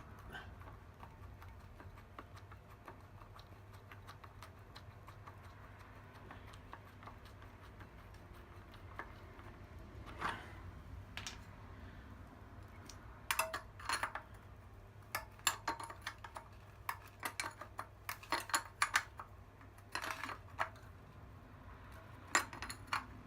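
Irregular metallic clicks and clinks of a spanner working on the nuts of a motorcycle wheel's tyre bead clamps as they are done up, sparse at first and coming in clusters through the second half, over a steady low hum.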